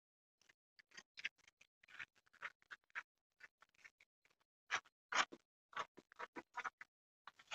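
Scissors cutting through brown kraft pattern paper: a run of short, irregular snips with paper crackle, louder a little past halfway.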